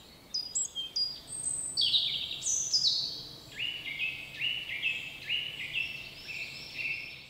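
Songbird singing: a long run of short, clear high notes that step down in pitch, starting very high and settling into repeated lower notes for the rest of the song.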